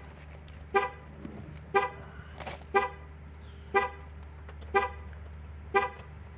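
The 2011 Chevrolet Avalanche's horn honking in short, evenly spaced blasts about once a second, six times: the pattern of the factory theft alarm going off after the truck was opened without its key.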